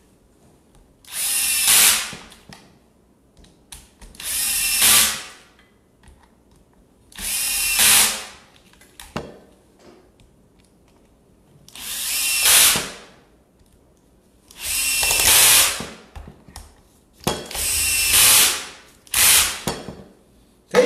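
Cordless drill-driver running in seven short bursts of about a second each, driving screws one after another into the plastic motor housing cover of a circular saw; each burst grows louder and then cuts off as the screw seats, and the last two come close together near the end.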